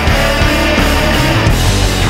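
Loud heavy rock music, dense and driving, with a steady bass line.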